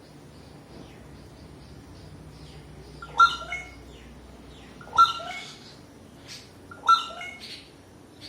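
A bird calling loudly three times, about two seconds apart, with fainter high chirps before the first call.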